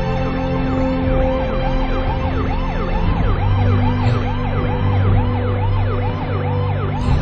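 Emergency-vehicle siren wailing in a fast rise-and-fall cycle, about three sweeps a second, over steady low tones.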